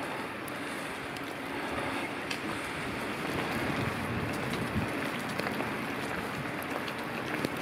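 Steady rushing noise of riding a bicycle through a wet street in sleet: wind on the microphone and tyre hiss on wet paving, with scattered faint ticks.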